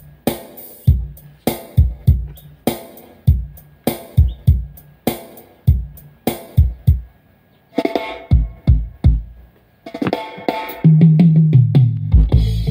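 Recorded music with a drum beat played through a loudspeaker driven by a homemade 500-watt stereo power amplifier, as a listening test of the amp. Drum hits come about every 0.6 s, give way to a few chords, and a deep bass line comes in about eleven seconds in.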